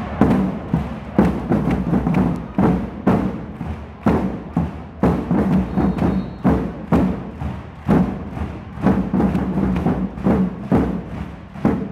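Drum hits at a steady beat, about two to three a second, with crowd voices underneath: supporters drumming in a volleyball hall.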